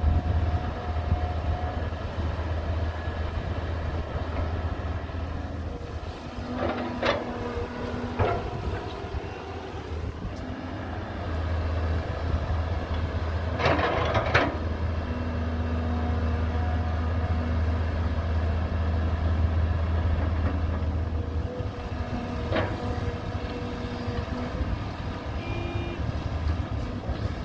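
Excavator's diesel engine running steadily, its pitch shifting a little as it works. Several brief sharp noises cut through it, the longest a little past the middle.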